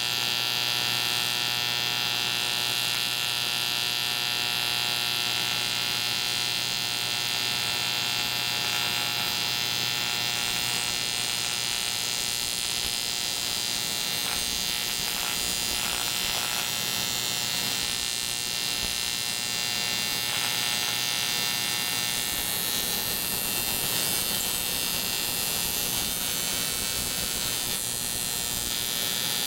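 AC TIG welding arc buzzing steadily while welding the cracked aluminum case of a Harley-Davidson knucklehead engine.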